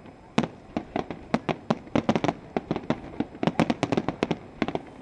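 Fireworks bursting in a rapid, irregular string of sharp bangs, several a second, some louder than others.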